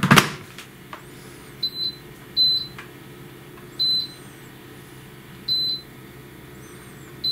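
LUMME multi-cooker's control panel beeping as its buttons are pressed to set the cooking temperature and time: a string of short, high beeps, some in quick pairs, one to two seconds apart. It opens with a single loud thump as the lid is pressed shut.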